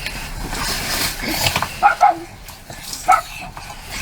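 A dog barking in short, sharp barks: a quick pair about two seconds in and another about a second later.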